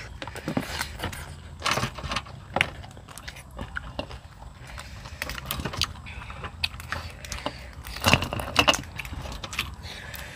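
Grilled prawn shells being cracked and peeled by hand, with eating sounds. The clicks and crackles come irregularly, with a louder cluster about eight seconds in.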